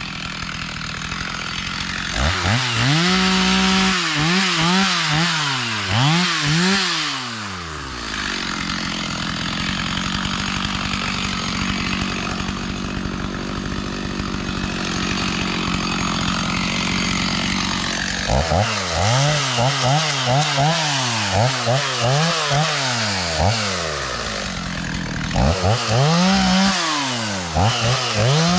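Chainsaw revving up and dropping back again and again, about once a second, with about ten seconds of steadier running in the middle.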